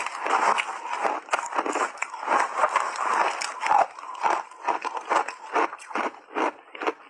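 Shaved ice coated in matcha and milk powder being chewed close to a clip-on microphone: a steady run of crisp crunches, several a second.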